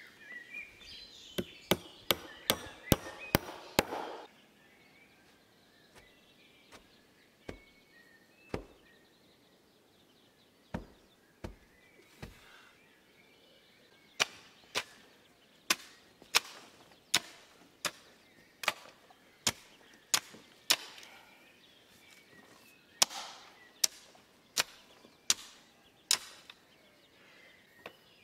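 Hammer blows on a wooden board frame, a quick run of strikes in the first few seconds. After a sparser lull comes a steady series of hoe strikes chopping into the soil, a bit more than one a second.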